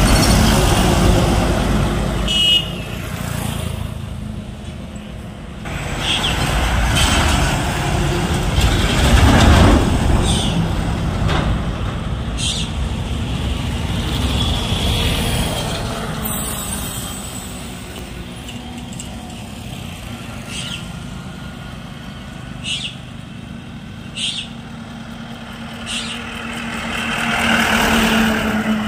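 Heavy goods trucks, an Ashok Leyland lorry among them, driving past one after another, their engine and tyre noise swelling and fading as each goes by. The noise is loudest at the start, around nine seconds in and near the end, and short sharp high sounds come several times in between.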